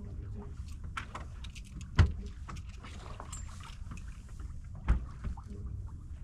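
Sailboat under way: a steady low rumble of wind and water along the hull, with scattered small clicks and knocks from the boat and its gear. Two louder thumps come about two seconds in and just before five seconds.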